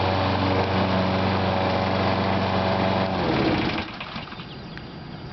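Lawn mower engine running steadily, then shut off about three seconds in, its pitch falling as it winds down to a stop.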